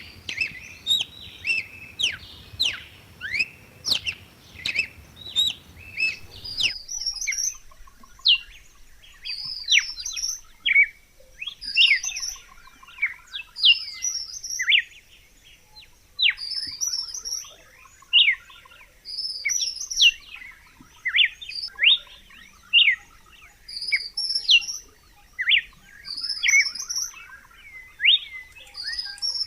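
Red-cowled cardinal singing: phrases of quick, sharply falling whistled notes, repeated every one to two seconds. About seven seconds in, a low background hiss drops away abruptly.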